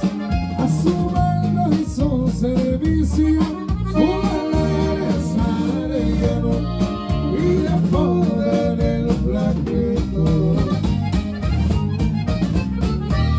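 Live norteño-style band music: a button accordion plays melodic runs over a drum kit beat and a strummed guitar.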